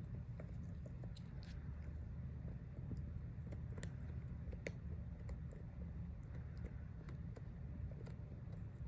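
Yorkie puppy gnawing a hard chew treat: scattered crunching clicks and crackles over a steady low hum.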